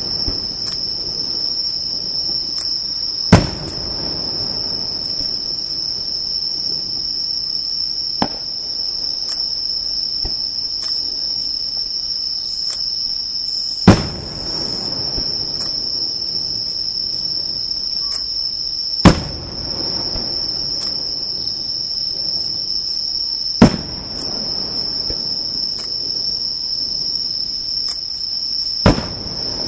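Firework shells bursting one at a time, about every five seconds, each a sharp bang followed by a rolling echo. A steady high-pitched insect trill runs underneath throughout.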